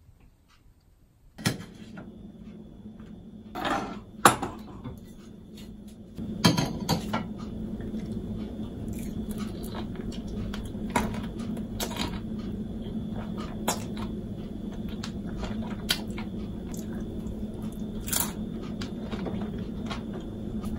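Close-up mukbang eating sounds: bites and chewing of a tortilla-crust pizza topped with nuts, with scattered sharp clicks and knocks of dishes. A steady low hum sets in about a second and a half in and grows louder about six seconds in.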